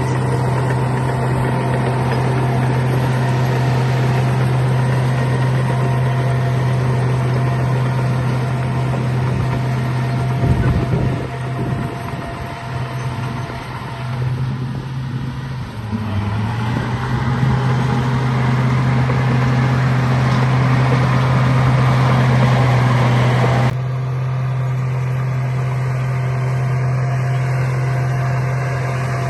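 Bulldozer engine running steadily with a strong low hum. Its level and pitch dip for a few seconds about halfway through, then pick up again. The sound changes abruptly shortly before the end.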